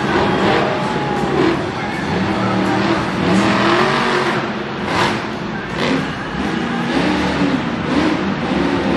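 Monster truck's supercharged V8 revving up and down hard as it jumps and drives over dirt ramps, with a couple of sharp bangs about five seconds in.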